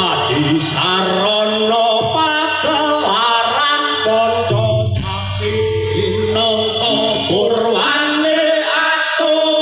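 Live music for a Javanese jaran kepang (kuda lumping) dance: male voices singing a chant-like melody over instrumental accompaniment.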